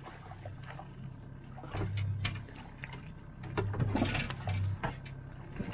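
50 hp outboard motor running steadily at trolling speed, under sharp clicks and rattles of fishing tackle and splashing from a hooked brook trout thrashing at the surface close behind the boat. The splashing comes in two louder rushes, about two seconds in and again around four seconds.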